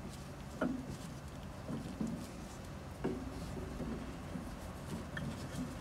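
Handling noise: scattered light knocks and rubbing as a gloved hand works a new rubber V-belt onto the pulley inside the vibratory tumbler's base frame.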